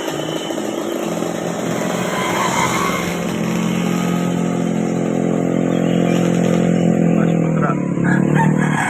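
Bus passing on the road, its engine giving a steady hum over road noise that dips slightly in pitch as it goes by, about three quarters of the way in.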